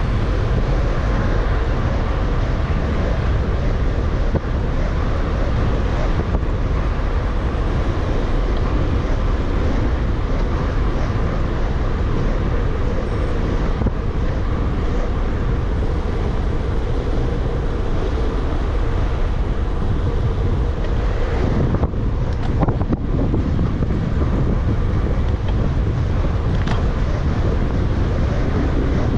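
Steady wind buffeting the camera microphone of a gravel bike being ridden, with tyre and road noise underneath. There are a couple of short knocks about three-quarters of the way through.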